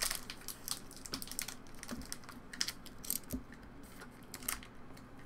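A quick, irregular run of light clicks and taps, like typing.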